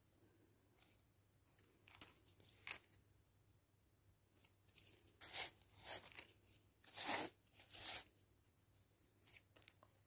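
Fingers pressing into and crumbling kinetic sand, making a series of short, soft rustles. The loudest come from about five to eight seconds in.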